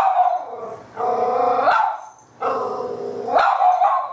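American Cocker Spaniel puppy barking in long, drawn-out, howling barks, about one a second, several rising in pitch at the end. It is fearful barking at a robotic toy cat.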